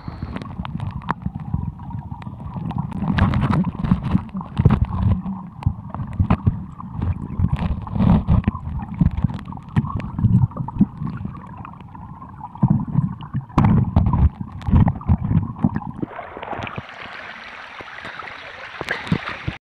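Muffled underwater water noise heard through a submerged camera: irregular low thuds of water moving and sharp clicks and knocks against the housing. About 16 seconds in, a steady rushing hiss takes over.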